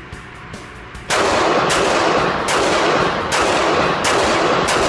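Glock 26 subcompact 9mm pistol firing a steady string of about six shots, roughly 0.7 s apart, beginning about a second in. The level stays loud between shots, with the range's echo filling each gap.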